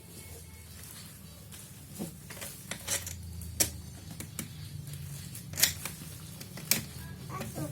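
Scattered sharp clicks and knocks, several in all, the loudest about five and a half seconds in, over a steady low hum.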